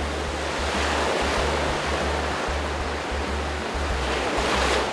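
Ocean surf breaking and washing up the shore, swelling louder near the end, under background music with a low bass line.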